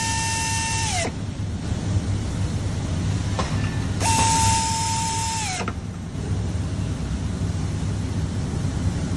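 Handheld pneumatic driver running twice with a steady whine and air hiss as it drives screws into a stool seat's wooden mounting plate. Each run drops in pitch as it winds down: the first stops about a second in, the second runs from about four seconds in for a second and a half. A steady low hum is heard throughout.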